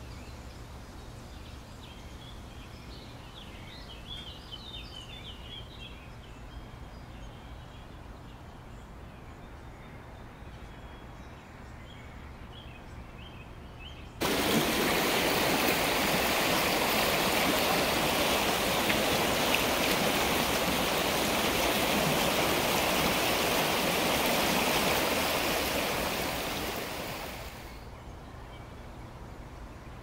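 Birds chirping over a quiet outdoor background. About halfway through, the loud rush of a waterfall cuts in suddenly, runs steadily for about thirteen seconds, then fades away.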